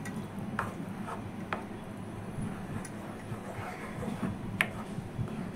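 Plastic spoon stirring a thick, simmering potato kheer in a nonstick pan, with a few light clicks of the spoon against the pan, the loudest near the end, over a low steady hum.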